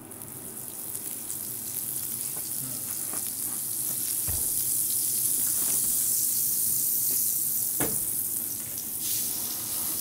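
Food frying and sizzling on a hot griddle, the hiss swelling over the first few seconds and staying strong. There are a couple of light clicks, about four and eight seconds in.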